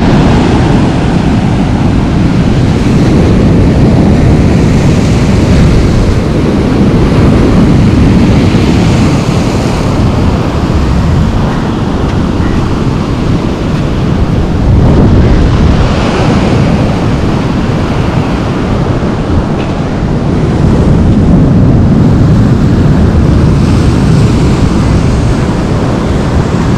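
Wind buffeting the microphone: a loud, low rumble that swells and eases every few seconds.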